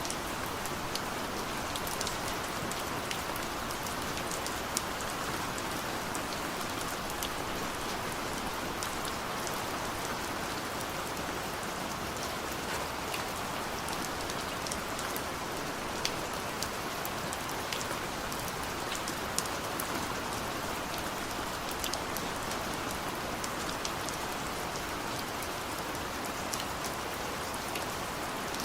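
Steady rain falling, with many small scattered drop ticks over an even hiss.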